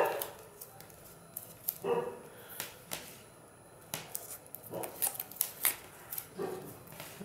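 Blue plastic tape being peeled and unwound from a thin clear plastic tube, giving scattered sharp crackles and clicks.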